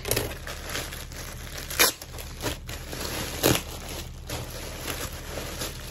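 Pink plastic mailer bag being pulled open and crinkled as a plastic-wrapped garment is drawn out of it. The rustling has a few sharper, louder crackles, about two seconds in and again about three and a half seconds in.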